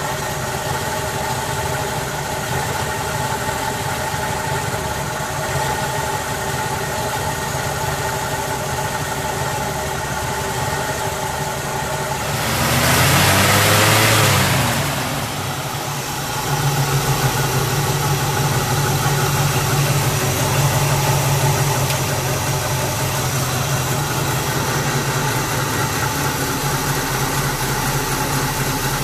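Chevrolet 283 cubic-inch small-block V8 of a 1965 Pontiac Parisienne idling, not running smoothly at first. About halfway the throttle is worked by hand at the carburettor, so the engine revs up and drops back, and then it idles steadily and smoothly on a new distributor cap, rotor, ignition coil, ignition leads and spark plugs.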